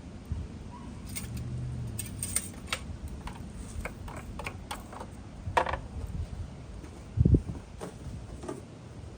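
Scattered clicks, taps and rattles of a plastic motor-oil bottle and cap being handled while topping up a car engine with oil, with one louder dull thump about seven seconds in.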